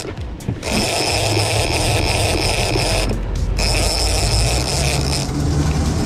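Big-game reel's drag screaming as a southern bluefin tuna takes line: a steady, high ratcheting whine that breaks off twice briefly, near the start and about three seconds in. Under it runs the low drone of the boat's outboard engines under way.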